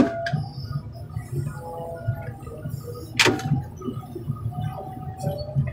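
Car crusher's engine running steadily while a semi-truck cab is crushed: a sharp crack at the start and another about three seconds in, with creaks and short squeals of the cab's metal and fiberglass giving way.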